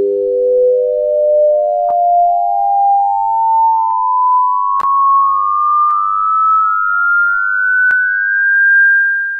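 Electronic pure tones play the harmonic series of a low fundamental one overtone at a time, stepping upward about every 0.6 s through about a dozen higher harmonics, so the pitch intervals grow ever smaller. The top tone is held and begins to fade near the end, with a few faint clicks along the way.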